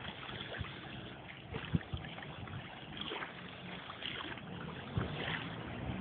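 Small motorboat running slowly, its engine a low steady hum under the wash of water and some wind noise, with a few dull knocks.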